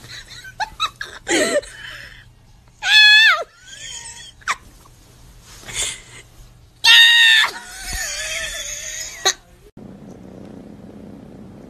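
A cat meowing loudly: several drawn-out, high-pitched cries with bending pitch, the loudest about three and seven seconds in, with shorter calls near the start.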